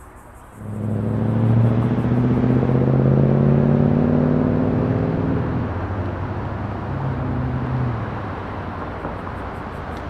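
A road vehicle's engine accelerating close by, a low hum that comes in suddenly and rises gently in pitch. It drops about halfway through, climbs again briefly, then fades into steady traffic noise.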